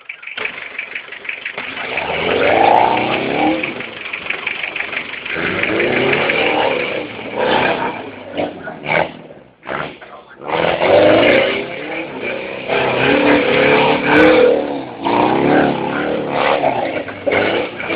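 Subaru car's engine being driven hard, revving up and easing off again and again. There is a brief lull about ten seconds in.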